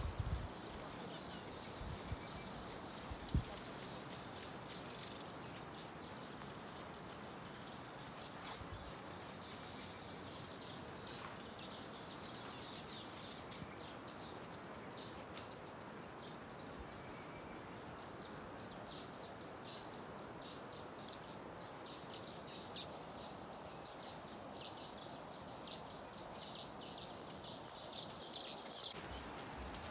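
A colony of weaver birds chattering and chirping continuously in the trees, over a steady rushing hiss from the Nile rapids. A single low thump about three seconds in.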